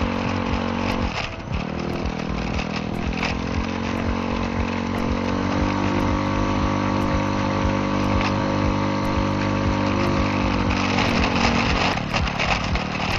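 Motor scooter engine running steadily under way on a rough gravel track. Its pitch dips briefly about a second in and falls again near the end, with scattered clicks and knocks from the ride and a steady rush of wind noise.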